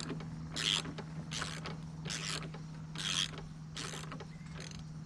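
Ratchet wrench being worked in short back-and-forth strokes, one rasping click-run about every 0.8 s, on a bolt of a passenger-side engine mount that is still bound up under the engine's weight. A steady low hum runs underneath.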